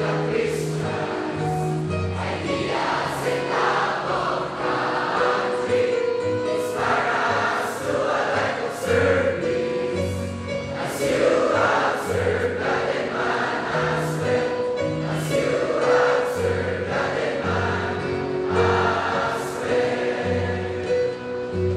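A choir singing a slow song together, over held accompaniment notes and a stepping bass line.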